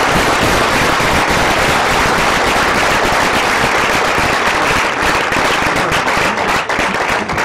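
Audience applauding: dense clapping that thins out near the end into a few separate claps.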